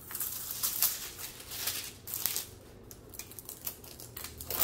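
Protective plastic film on a diamond-painting canvas being smoothed flat with a ruler and hands: a series of short, hissy rubbing and crinkling strokes, quick and close together at first, sparser in the middle and picking up again near the end.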